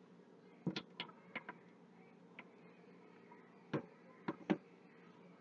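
Scattered light clicks and knocks, about seven in all, as utensils and containers are handled with gloved hands, over a faint steady hum.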